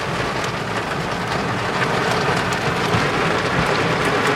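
Heavy rain falling on a car's roof and windows, heard from inside the stopped car: a steady hiss packed with many small drop ticks, with the car's engine running low underneath.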